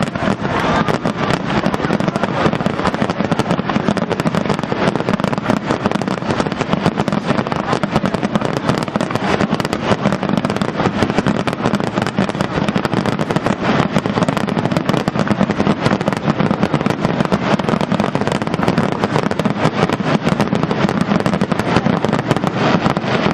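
Aerial fireworks shells bursting in a dense, unbroken barrage, many sharp reports a second with crackle.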